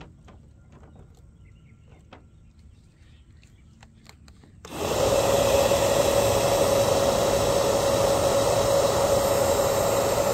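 A bubble gun's fan motor switches on about five seconds in and runs with a steady whir and a constant hum, blowing out a stream of bubbles. Before it, only a few faint clicks.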